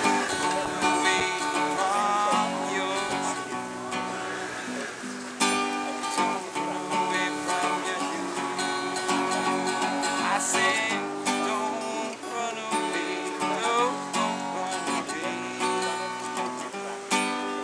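Acoustic guitar strummed steadily through chord changes as song accompaniment.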